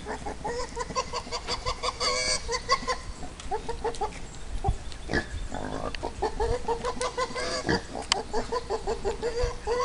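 Small pig grunting in a long run of short, quick grunts.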